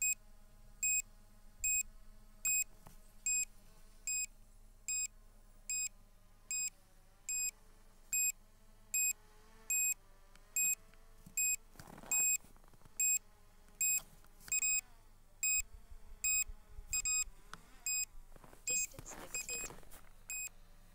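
A short, high electronic warning beep repeating evenly about every three-quarters of a second: the low-battery alarm of an SJRC F11s 4K Pro drone, whose flight battery is down to about 11.1 V. Under it is a faint wavering hum, and there is a brief rush of noise about twelve seconds in and again near the end.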